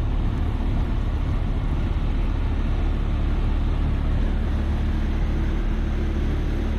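Steady low drone of an AAON rooftop HVAC unit running, with a broad rush of moving air over it.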